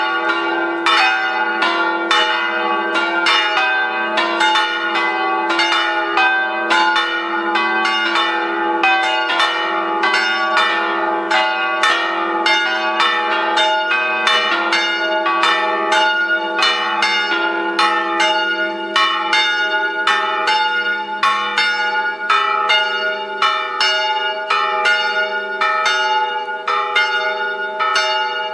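Several church bells ringing together, struck in quick succession at about two strikes a second, their hum ringing on underneath. The deepest bell's hum dies away about three-quarters of the way through.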